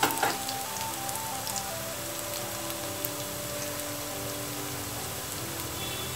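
Soya kababs shallow-frying in hot oil in a pan: a steady sizzle and crackle of bubbling oil, with background music playing a slow melody over it.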